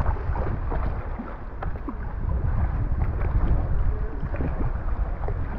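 Water splashing and dripping around a sea kayak under paddle, with many small irregular splashes over a low, steady rumble.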